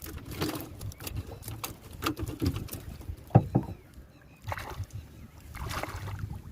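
Irregular water splashes and knocks from working on the water, with one sharp knock about three and a half seconds in.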